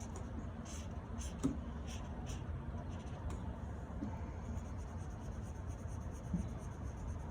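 Faint scratching of a drawing tool on paper in short strokes, most of them in the first few seconds, as a lamp shape is drawn.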